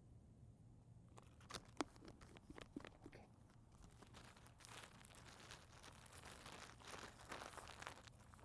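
Faint crackling and rustling with scattered sharp clicks, thickening into a denser crinkly rustle about halfway through.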